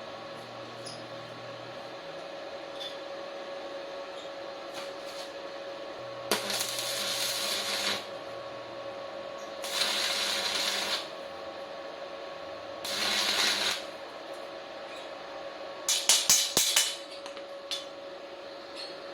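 Small 450-watt stick (MMA) welder striking short arcs: three bursts of crackling hiss, each a second or so long, over a steady faint hum, then a brief cluster of sharp crackles near the end.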